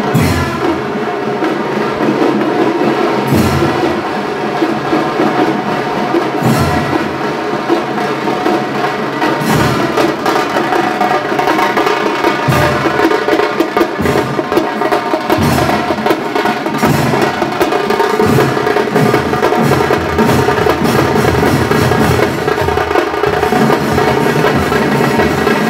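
Music with fast drumming over a held melody line, and a heavier stroke about every three seconds.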